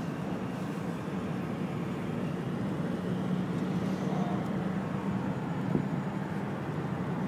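Steady road and engine noise from inside a moving car.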